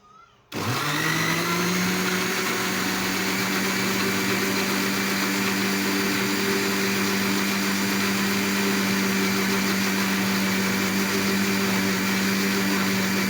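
Electric blender switched on about half a second in, quickly spinning up and then running at a steady pitch as it blends banana, tomato and milk.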